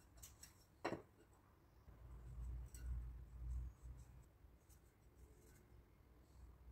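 Quiet bench-work handling sounds: light scratching and rubbing, with a sharp click about a second in and a low rumble for a couple of seconds after it.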